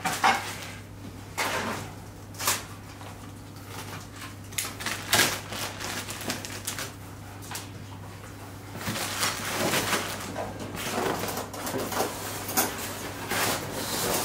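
Plastic bags crinkling and parts being handled against the polystyrene foam insert of a cardboard box, in irregular short bursts and knocks that grow busier in the last few seconds.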